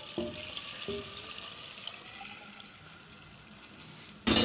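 Meat stock pouring in a stream into a clay cooking pot of masala and beef trotters, splashing, easing off partway through. A short loud clank near the end.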